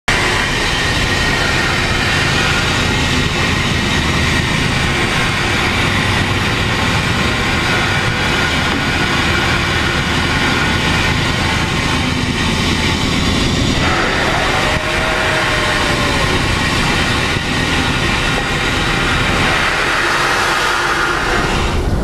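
Loud, steady mechanical rumble and rush of a commercial fishing trawler's engines and deck machinery. A higher part of the noise drops out about two-thirds of the way through.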